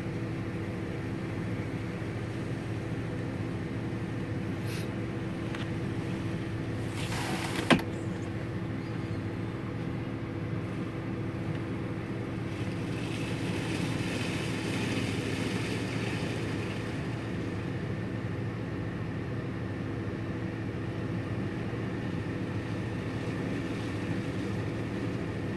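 PDQ ProTouch Tandem car wash machinery running: a steady motor hum with water spraying as the spinning brushes scrub the car. A short hiss ends in a sharp click about seven seconds in, and the spray gets louder for a few seconds around the middle.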